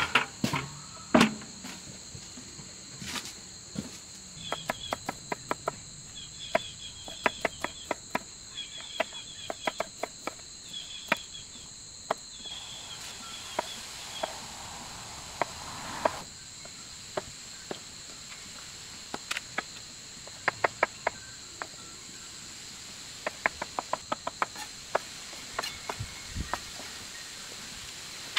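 Kitchen knife chopping vegetables on a wooden butcher-block counter: sharp taps in quick runs, with pauses between. A steady high insect drone runs underneath.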